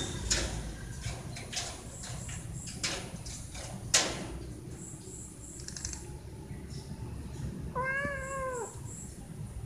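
Cat's paws and claws tapping and scratching at a mesh window screen, a string of taps with one sharp, louder tap about four seconds in. Near the end a cat gives a single meow, under a second long, dropping in pitch as it ends.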